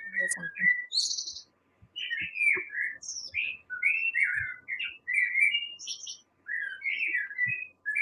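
Recording of a Eurasian blackbird singing: a series of warbling phrases with short pauses between them, a few carrying high, thin notes.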